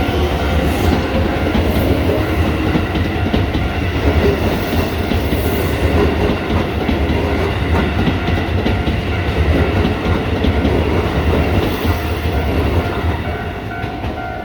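Electric commuter train running through a level crossing, its wheels clattering over the rail joints in a steady, loud rumble that eases slightly near the end.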